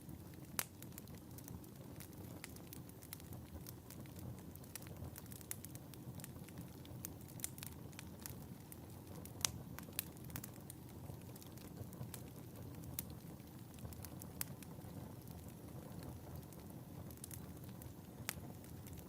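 Wood fire burning in a fireplace with a low steady rumble of flames and frequent crackles and pops, a few sharper pops standing out.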